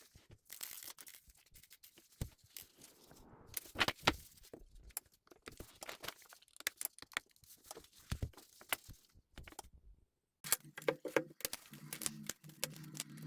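Hand work on a phone at a repair bench: irregular sharp clicks, scrapes and crinkling, tearing noises of small tools, adhesive and parts being handled. About ten seconds in the noise stops briefly, then a low steady hum comes in under the clicks.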